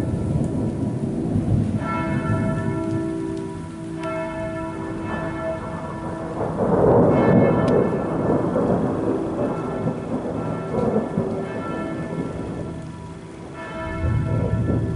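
Steady summer rain on a garden, with church bells tolling in the town, a new stroke every two or three seconds, and rumbles of thunder, the loudest about halfway through and another near the end.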